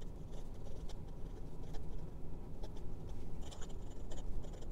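Fountain pen nib, a Jinhao X850, writing quick cursive on notebook paper: faint, intermittent scratching as the strokes are made, with more strokes in the second half.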